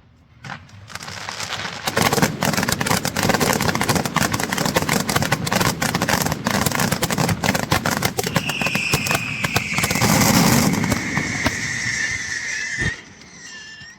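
A string of firecrackers going off in a dense, rapid crackle that builds about a second in and stops abruptly near the end. A high whistling tone slides slowly downward over its last few seconds.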